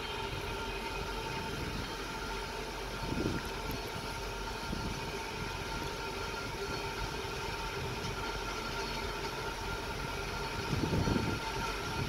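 Lookout Mountain Incline Railway car running on its track: a steady rumble with a mechanical hum. Low thumps come about three seconds in and again near the end.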